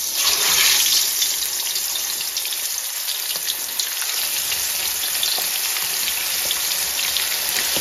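Marinated chicken legs sizzling in hot oil in a frying pan as they are laid in one after another, with a sudden burst of sizzling as the first piece goes in, then a steady sizzle with small crackles.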